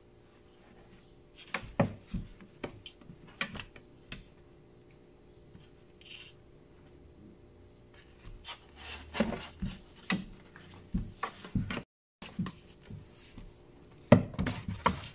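Scattered knocks and light clatter of objects being handled, in two bursts: a few sharp knocks between about 1.5 and 4 seconds in, then a busier run of knocks from about 8 seconds to the end.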